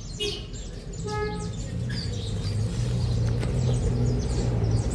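Birds chirping outdoors: many quick, high, downward-sweeping chirps throughout, with one brief steady-pitched call about a second in. A steady low rumble sits underneath and grows louder after about two seconds.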